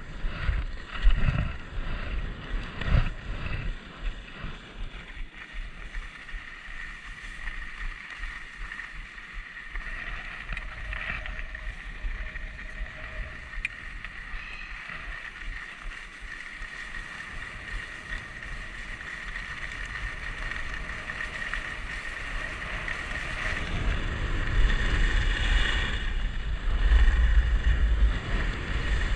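Wind rushing over a helmet camera's microphone, mixed with the steady hiss of sliding on groomed snow. There are gusty rumbles in the first few seconds, and the wind rumble grows heavier again near the end.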